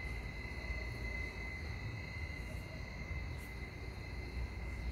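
Outdoor background noise: a steady high-pitched whine over a low rumble.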